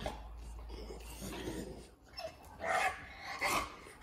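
Noisy breathing of an American Bully dog, with two short, louder huffs in the last second and a half.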